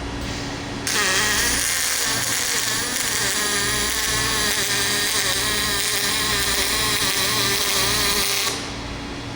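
An electric welding arc buzzing and hissing steadily over a low hum, switching on suddenly about a second in and cutting off near the end.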